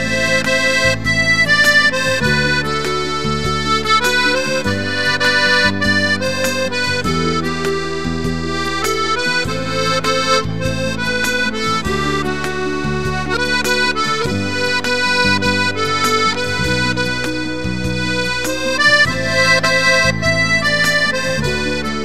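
Piano accordion playing a melody on the treble keys over held bass notes and chords from the left-hand buttons, the notes sustained and changing steadily.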